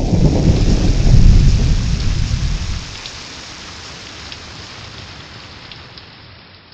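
Thunderstorm: a loud, low thunder rumble over steady rain for the first few seconds. The thunder dies away about three seconds in, leaving an even rain hiss that fades out near the end.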